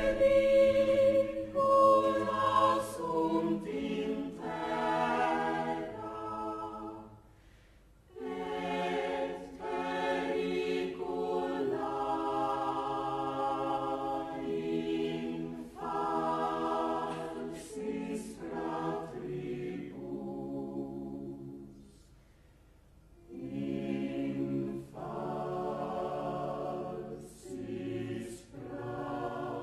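Mixed chamber choir singing unaccompanied in several parts, in phrases broken by two brief pauses, about seven and a half and twenty-two seconds in.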